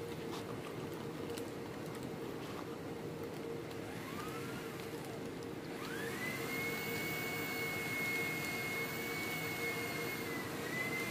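A machine's steady hum, joined about six seconds in by a whine that rises quickly, holds steady for about four seconds and drops near the end.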